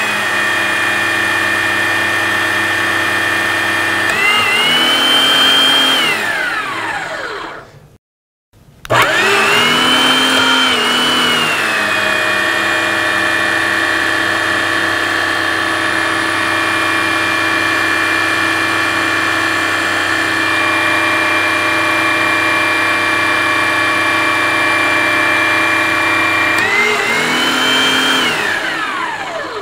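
Electric hydraulic pump motor driving a square-drive hydraulic torque wrench, running steadily under pressure near 8,000 psi. Its pitch rises briefly and it winds down to a stop about six seconds in. It starts again about a second later, drops in pitch as pressure builds, and holds steady before rising and winding down near the end.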